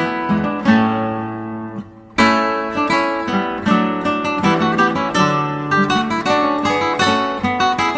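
Background music on acoustic guitar, plucked and strummed notes. About a second in, a chord rings out and fades, there is a brief near-gap just before two seconds, and then the playing picks up again.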